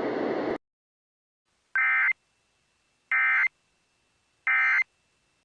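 Emergency Alert System end-of-message signal: three short, identical bursts of warbling digital data tones, about a second apart, marking the end of the weather alert. Before them, a steady hiss cuts off about half a second in.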